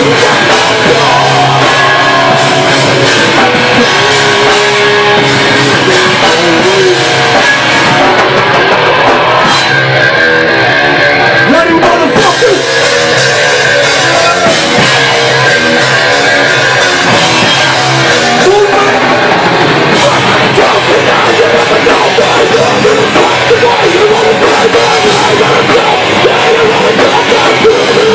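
Heavy metal / hardcore punk band playing live and loud: drum kit and electric guitar with a vocalist shouting into a microphone.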